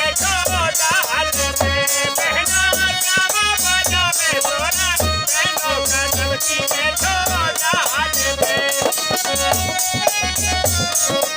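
Instrumental break in a Hindi Malhar folk song: a sliding, bending melody line over a steady low drum beat and fast rattling percussion.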